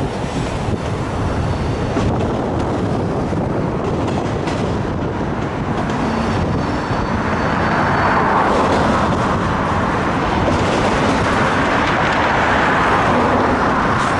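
Autorack freight cars rolling past, a steady rumble of steel wheels on rail that grows louder about halfway through.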